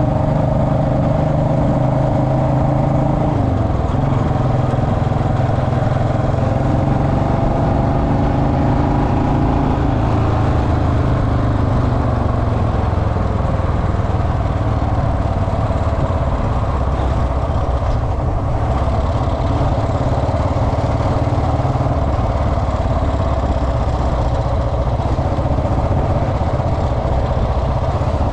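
Royal Enfield Bullet Electra single-cylinder motorcycle engine running. Its pitch rises and falls over roughly the first dozen seconds, then holds steady.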